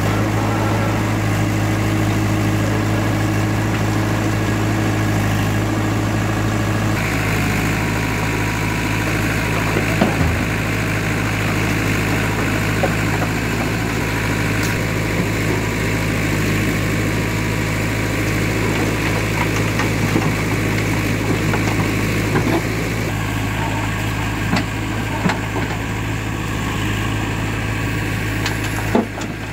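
Diesel engine of a JCB 3DX backhoe loader running steadily while it digs and loads, with stones clattering now and then as the bucket scrapes the pile and dumps rock into a tractor trolley, more often near the end.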